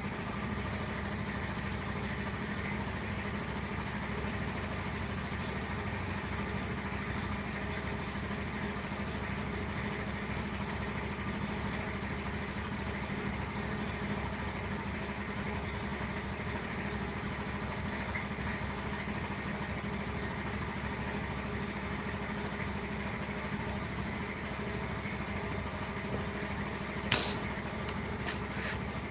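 A workshop machine's electric motor running steadily at one speed, with a brief sharp knock near the end.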